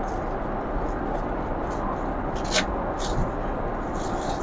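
Steady rushing cabin noise of a Boeing 777-300ER jet airliner in flight, with a few brief faint rustles or clicks about two and a half, three and four seconds in.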